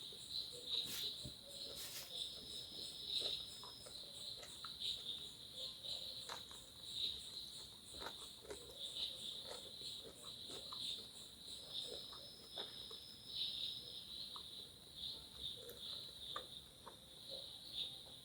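Insects chirring steadily in a fast, pulsing high-pitched drone, with scattered soft clicks and taps.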